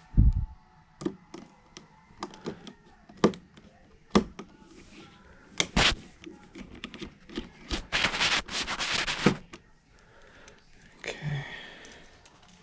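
Irregular clicks and knocks of hands working with tools and small parts, with a low thump right at the start and a dense scraping rustle lasting about a second and a half past the middle.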